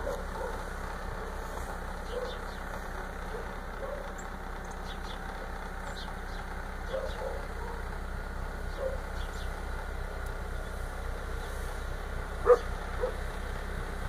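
An engine running steadily with a low hum, while a dog gives a few short barks, the loudest one near the end.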